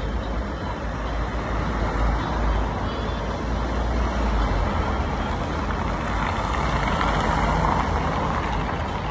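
Street traffic: vehicles passing on a city road. A deep engine rumble in the first half gives way to rising tyre noise that peaks near the end.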